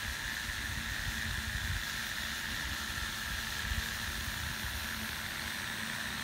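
Steady hiss with a low rumble from a steamer pot of water boiling beneath a stuffed pumpkin.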